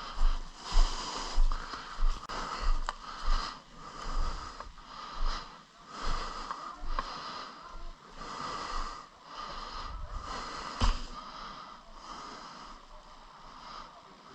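A person's heavy breathing close to the microphone. Over the first few seconds there are regular thumps about every two-thirds of a second, and there is one sharp snap about eleven seconds in.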